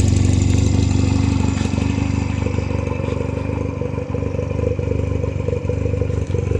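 2006 Honda Rebel 250's parallel-twin engine idling steadily.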